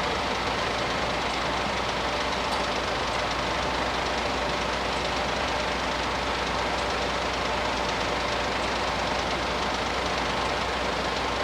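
Diesel train running steadily, an even rumble with a few faint steady tones and no change in level.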